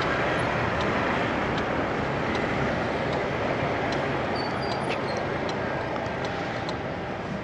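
Motorcycle riding slowly through city traffic: a steady rush of engine and wind noise on the rider's microphone, getting gradually quieter as the bike slows.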